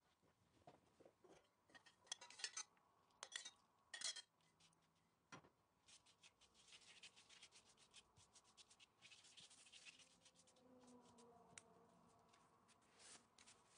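Thin sheets of ready-made phyllo (yufka) rustling and crackling as they are handled and laid on the counter, with the soft swishing of a silicone pastry brush spreading melted butter over them. A few louder crackles come about two to four seconds in, then a long run of quick, soft brush strokes.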